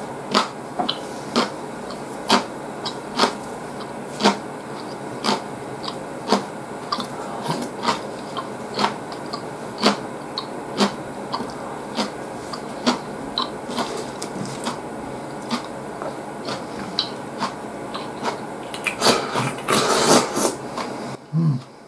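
Close-miked eating sounds of a person eating tsukemen noodles: sharp, wet chewing clicks every half second to a second, with a longer, louder stretch of slurping near the end.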